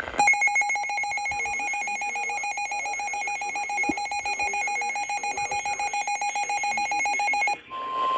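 Weather radio's electronic alert alarm, set off by a decoded emergency alert header: a loud, rapidly pulsing, warbling beep for about seven seconds that cuts off suddenly. Near the end a single steady tone takes over, the NOAA Weather Radio 1050 Hz warning alarm tone.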